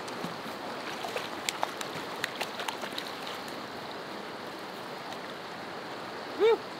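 Shallow mountain creek running over rocks, a steady rushing. A scatter of light clicks and taps comes between about one and three and a half seconds in, and near the end a short, loud call rises and falls in pitch.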